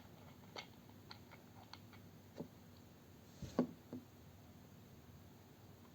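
A few faint clicks and light knocks of objects being handled, scattered irregularly, with a louder double knock about three and a half seconds in.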